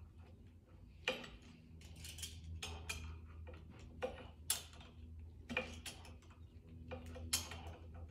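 Hand tools clicking and clinking on motorcycle fork parts: about a dozen sharp metallic clicks at uneven intervals, over a steady low hum.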